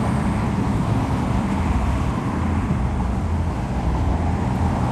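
A steady low rumble of outdoor background noise, with no distinct firework bursts.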